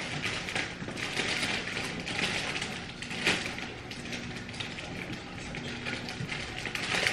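Clear plastic bag of grapes rustling and crinkling as grapes are picked out of it by hand, with a sharp click about three seconds in.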